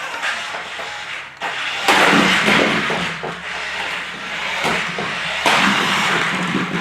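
Toy remote-control car driving in two short runs, its motor and wheels starting suddenly about two seconds in and again near the end.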